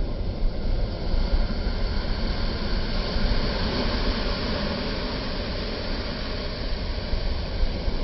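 Ocean surf breaking and washing up onto a sandy beach: a steady rushing noise with a low rumble.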